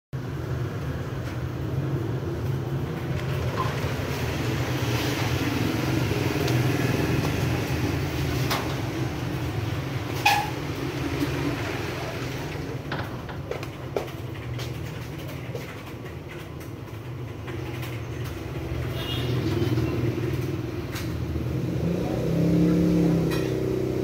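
Steady low background rumble, like distant road traffic, with a few brief clicks; the sharpest click comes about ten seconds in.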